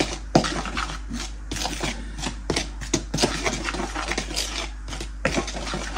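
A metal spoon stirring dry tempura batter mix (plain flour, cornflour, paprika, salt) in a plastic bowl: repeated short scraping strokes, a few a second.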